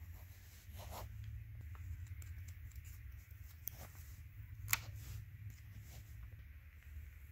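Faint scratching and rubbing of a pen tip on notebook paper as lines are drawn, with one sharp click a little past halfway through.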